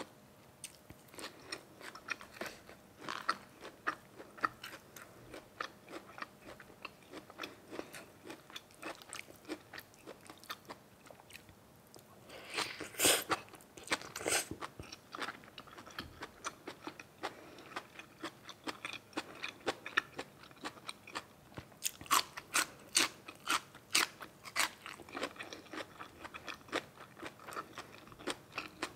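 A person chewing and biting food close to the microphone: a steady run of small crunches, with louder crunching bites about 13 seconds in and again from about 22 to 25 seconds.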